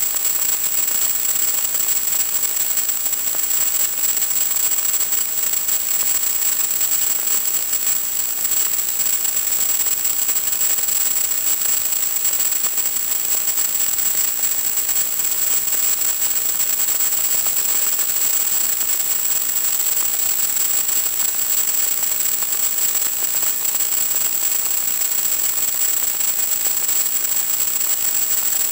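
Steady static hiss with a thin, constant high whine, the audio channel of an analog FPV video receiver carrying no real sound from the plane. It does not change when the throttle drops from half to off near the end.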